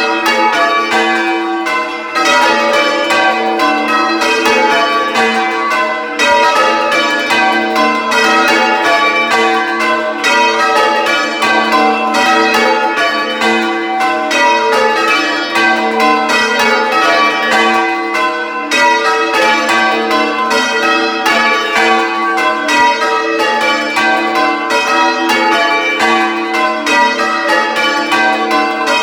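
A ring of six church bells being rung full-circle in call-changes, heard up close in the belfry: a loud, even, unbroken succession of bell strikes whose ringing tones overlap. The tenor, the heaviest bell at about 12 cwt, is in G.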